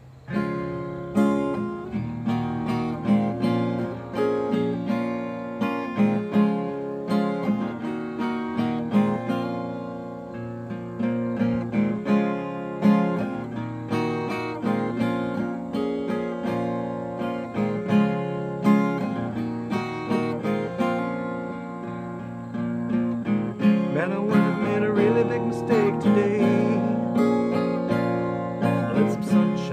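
Fender Sonoran acoustic guitar with a capo, playing an instrumental country intro of strummed chords that ring on between strokes.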